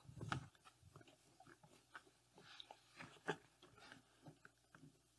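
Faint, irregular clicks and rubbing of fingers working small rubber grommets into the holes of a black plastic bucket, with slightly louder taps near the start and about three seconds in.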